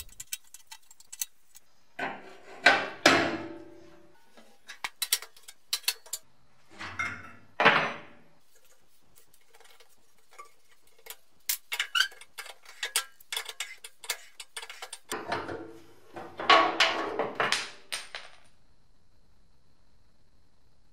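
Spanner and seized, rusted fuel-pipe nut on a steel fuel tank: metal clicks and clinks, with three spells of grinding and scraping as the nut and pipe are wrenched and twisted off, the pipe being destroyed in the process. It goes quiet about two-thirds of the way through.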